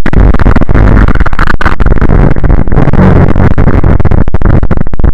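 An extremely loud, heavily distorted sound effect: a harsh, crackling wall of noise with heavy bass that starts suddenly and stays at full level throughout.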